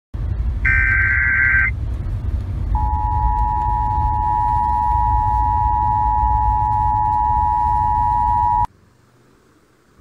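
A short burst of Emergency Alert System digital header tones, then the EAS two-tone attention signal held steady for about six seconds before cutting off suddenly, over a low rumbling noise.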